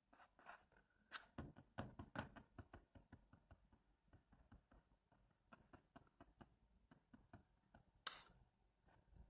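Faint, irregular clicks and taps, busiest in the first few seconds, with a short hiss about eight seconds in.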